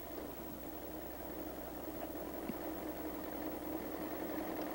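An engine idling: a steady low hum with one held tone. There is a brief click near the end.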